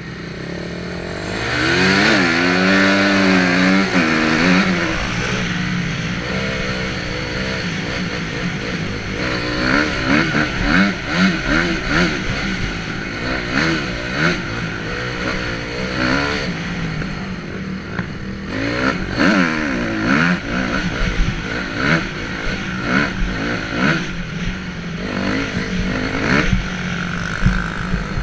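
Honda CRF250R dirt bike's single-cylinder four-stroke engine being ridden hard, revving up and dropping back again and again as it goes through the gears.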